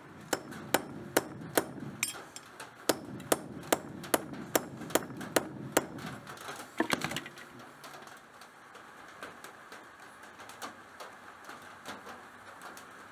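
Hammer striking a leaf-spring steel knife blade on a small anvil: a steady run of sharp metallic blows, about two and a half a second, for the first six or seven seconds, then only a few scattered light knocks.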